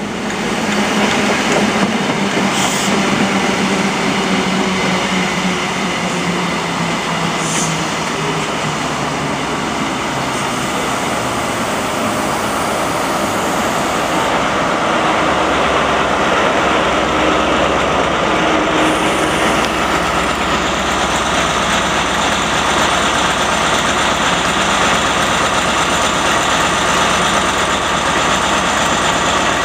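CrossCountry HST (InterCity 125) slowing to a stop at a platform: the coaches' wheels running over the rails, then from about halfway through the deeper engine note of the rear Class 43 power car's MTU diesel growing as it comes level.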